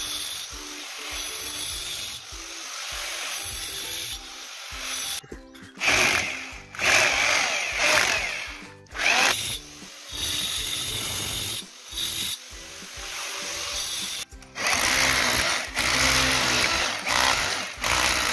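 Angle grinder running and cutting in short bursts, first into a plastered wall and then into a black granite slab; near the end an electric drill bores into the granite.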